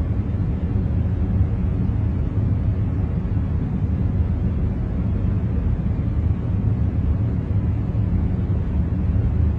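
Steady, deep rushing noise with most of its weight in the low end and no rhythm or change: a continuous noise track played for concentration, darker than true white noise.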